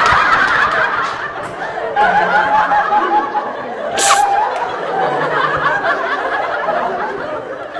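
Laughter and giggling mixed with some talking, with a short sharp hiss-like burst about four seconds in.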